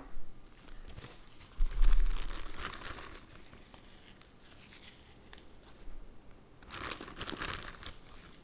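Packaging crinkling and rustling as small parts are handled, in two spells, with a brief deep thump just under two seconds in.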